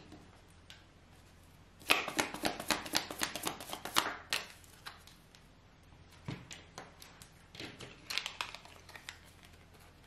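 A deck of fortune-telling cards being shuffled by hand: a quick run of card flicks and taps lasting about two and a half seconds, then a second, sparser run a couple of seconds later.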